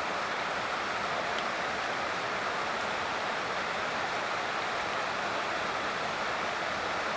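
Floodwater of a swollen river rushing steadily, heard as an even wash of water noise with no breaks.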